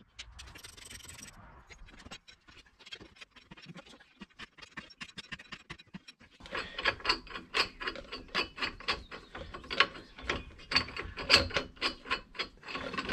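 Ratchet spanner clicking while a bolt on the strut top-mount plate is turned: faint, sparse clicks at first, then a fast, louder run of clicks from about halfway through.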